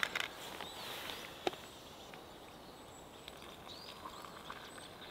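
Just-boiled water being poured from a metal camping pot into an AeroPress Go coffee press onto ground coffee: a soft, steady trickle. A few sharp knocks from the pot are heard in the first second and a half.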